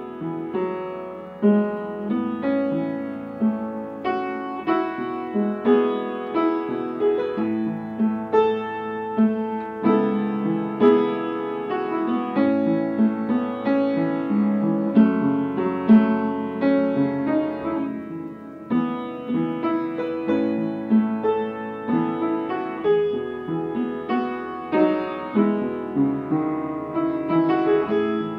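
Background solo piano music, notes and chords struck one after another at a gentle, even pace.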